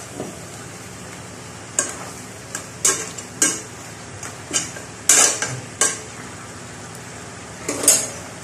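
Metal spoon stirring chicken and pork pieces in a nonstick pot: a dozen or so irregular scrapes and knocks against the pan, loudest about five seconds in and near the end, over a steady sizzle from the pan. The meat is being turned to work the freshly added soy sauce and vinegar through it.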